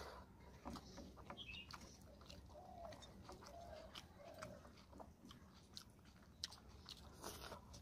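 Quiet, close-up mouth sounds of a person eating rice and fish curry by hand: wet chewing and lip smacks, with many small clicks.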